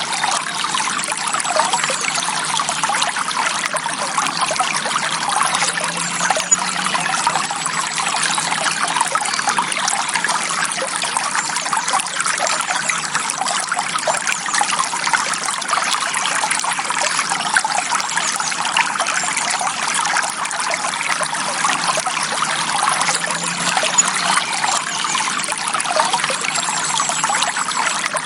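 Forest stream flowing steadily: an even, unbroken sound of running water.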